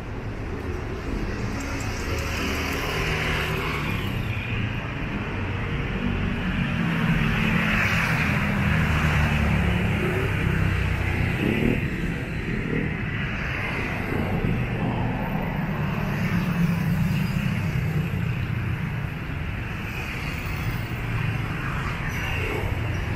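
Road traffic going by: car engines with tyre noise, swelling louder twice as vehicles pass.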